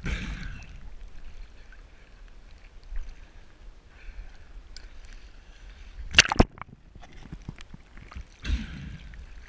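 Water sloshing and gurgling around an action camera as it dips in and out of the surface in shallow water. Two sharp knocks about six seconds in, and a thump near the end.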